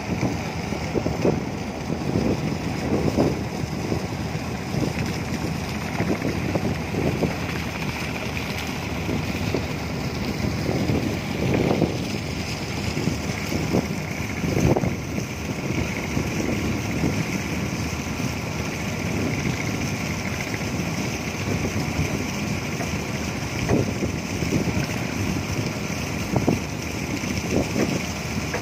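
Wind buffeting the microphone in irregular gusts, over a steady drone from the boat.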